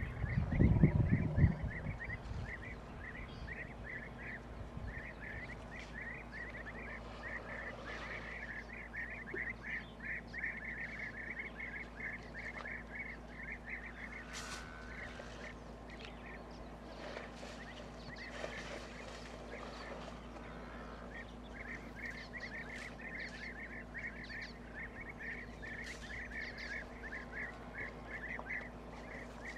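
Outdoor wildlife ambience of rapid, high, repeated animal calls, several a second, going on almost without pause and falling away for several seconds midway. A loud low rumble fills the first two seconds.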